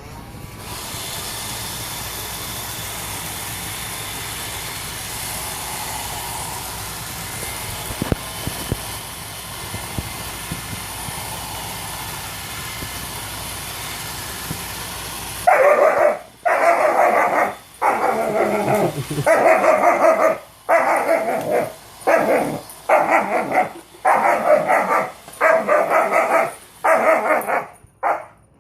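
A Roomba robot vacuum running with a steady whir; about halfway through, a German Shepherd puppy starts barking loudly at it, about a dozen barks roughly one a second.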